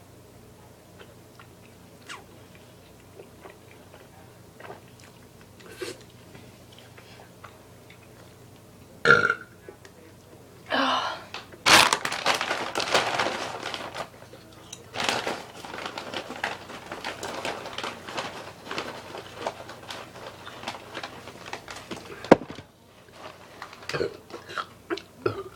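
Loud burps from a girl full of carbonated Mountain Dew and burrito: a short burp about nine seconds in and a longer, wavering one just after. Several seconds of mixed noise follow, and there is a sharp knock near the end.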